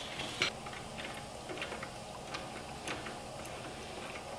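Faint, irregular light clicks and ticks of hand tools and metal parts being handled at the brake hose fitting on a rusty front brake caliper.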